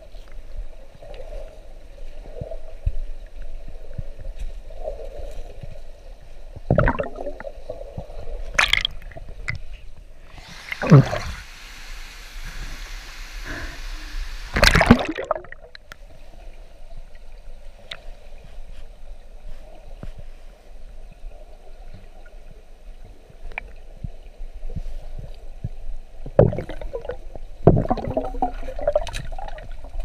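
River water heard through an underwater camera: a steady, muffled gurgling rush, broken by several louder sloshes and splashes, including one longer splash a little before halfway and a cluster near the end.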